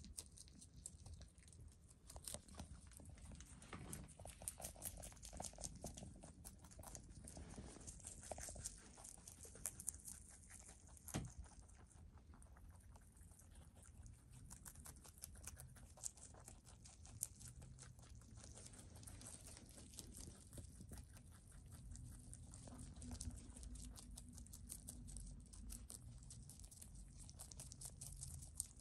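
Rabbits chewing and tearing leafy greens (lettuce and parsley): a quiet, rapid run of small crisp crunches and leaf rustles that never lets up.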